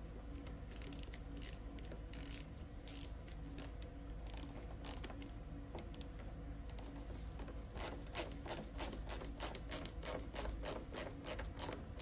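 Hand ratchet clicking as screws are driven in, in scattered short strokes at first, then quick steady clicking from about seven seconds in.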